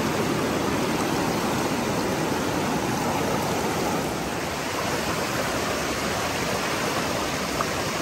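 Steady rush of a rocky mountain trout stream running through a shallow riffle.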